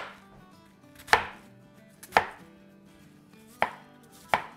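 Kitchen knife chopping through a wedge of raw green cabbage onto a cutting board: four sharp chops, roughly a second apart.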